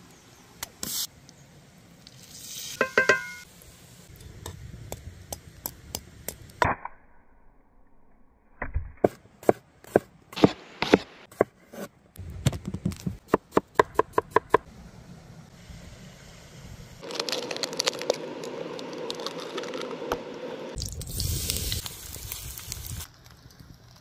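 Cooking sounds in quick succession: food sizzling in a cast-iron skillet, then a rapid run of knife chops through a red onion on a wooden board about halfway through. A steady sizzle returns in the last part.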